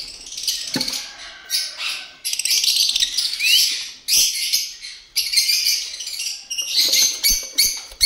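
A flock of caged African lovebirds chattering, a continuous mass of shrill, high-pitched chirps and squeaks overlapping without pause.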